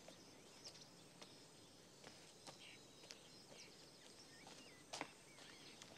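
Near silence: faint outdoor ambience with a few soft bird chirps and scattered light ticks, the clearest tick about five seconds in.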